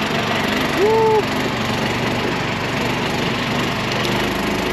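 Motorboat engine running steadily under way, with the rush of the hull through the water. About a second in, a short rising-and-falling voice exclamation sounds over it.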